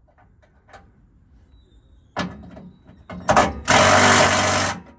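Power tool run in three bursts, the last about a second long and the loudest, with a rapid mechanical buzz under a loud hiss.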